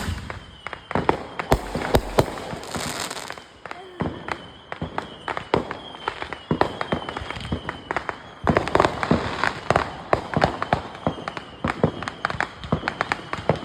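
Fireworks and firecrackers going off, many sharp bangs and pops in quick, irregular succession.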